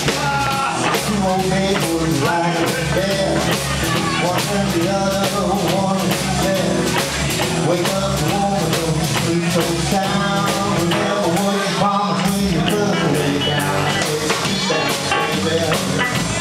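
Live band playing an up-tempo tune: electric guitar from a Telecaster-style guitar over electric bass and drum kit, with a steady pulsing bass line.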